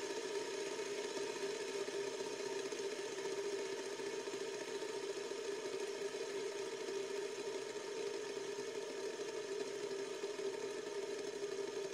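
LED light-up fidget spinner spinning freely on its bearing, giving a steady whirring hum.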